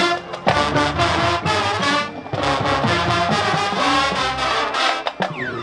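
A high school marching band's brass section plays a Motown arrangement in loud phrases, with brief breaks between phrases.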